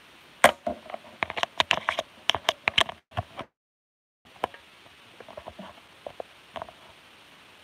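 A quick run of small sharp clicks and taps for about two and a half seconds, then a brief total dropout to silence, then a few more scattered clicks.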